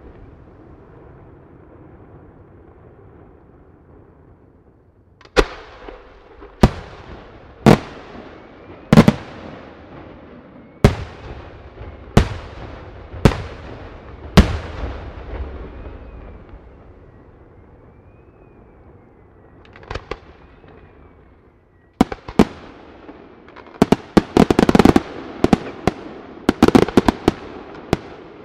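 Aerial fireworks display. About eight single sharp shell bursts go off roughly a second apart, then after a lull comes a dense, rapid barrage of bangs and crackling in the last few seconds.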